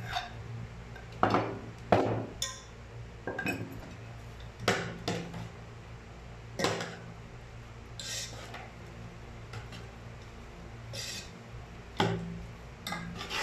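Metal slotted spoon clinking and scraping against an aluminium pot while mixing chopped meat, in about a dozen separate knocks at an uneven pace, over a faint steady low hum.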